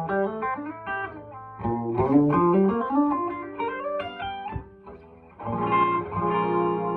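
c.1954 Gibson Les Paul Junior with its P90 pickup through a Marshall JMP combo amp, played as quick single-note lead lines and rising runs, then a chord struck and left ringing near the end.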